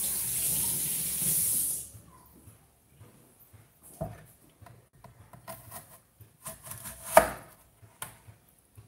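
Kitchen tap running in a steady gush, which stops about two seconds in. Then come light clicks and knocks of a knife on a wooden cutting board as a green apple is cut, the sharpest knock about seven seconds in.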